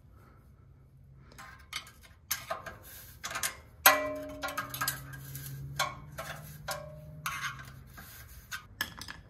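Screwdriver clicking and scraping against the metal of the muffler outlet as the spark arrester screen is pried out. About four seconds in there is a sharp metallic clink that rings on briefly, and a smaller ringing clink follows a few seconds later.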